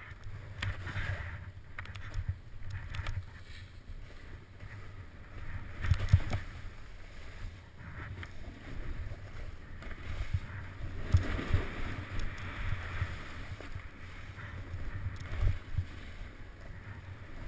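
Wind buffeting a GoPro's microphone during a downhill run through snowy glades, a steady low rumble, with the hiss and scrape of snow under the rider's edges. A few sharp thumps from bumps in the trail stand out, the loudest about six and eleven seconds in.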